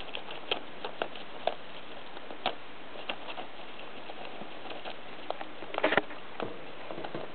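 Hamster gnawing and tugging at a clingfilm tube to reach the monkey nut inside: scattered small crinkles and clicks, with a louder burst of crackling about six seconds in.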